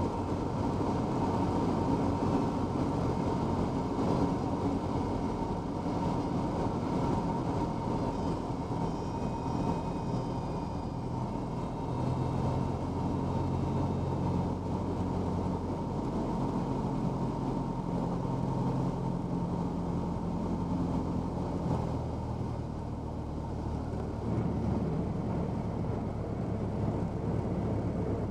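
Cessna 172's piston engine and propeller droning at low power, heard inside the cabin together with airflow noise. The engine note shifts about twelve seconds in and drops a little about twenty-two seconds in, as power is changed.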